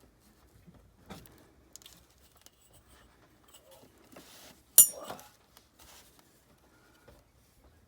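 Calendar paper and a journal being handled: soft, scattered rustles and taps, a brief rustle after about four seconds, then one sharp click just before five seconds in.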